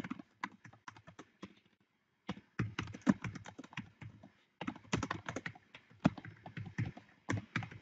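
Typing on a computer keyboard: quick runs of key clicks in short bursts, with a pause of about a second near the two-second mark.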